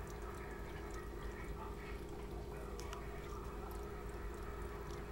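A cat licking water off the bottom of an upturned mug: faint, short wet lapping clicks scattered over a steady low hum.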